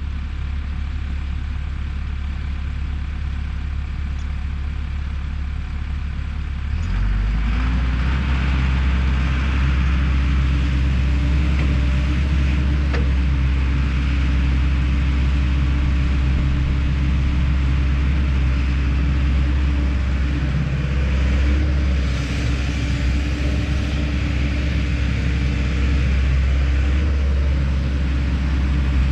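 Kobelco SK210 excavator's diesel engine running steadily, then revving up about seven seconds in and holding at the higher speed.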